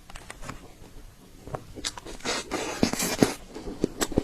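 Close-miked eating of cream-covered mousse cake: scattered small wet mouth clicks, with a longer hissy scraping stretch from about two seconds in.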